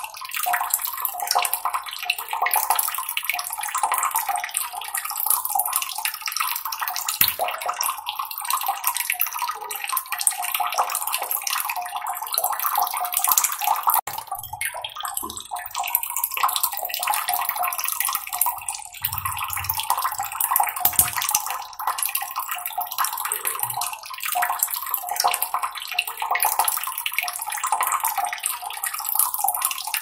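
Water trickling and splashing steadily, a bright, unbroken babble with no deep rumble.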